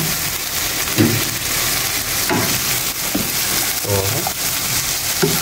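Tilapia sisig with onions and green chili sizzling steadily in hot oil in a frying pan.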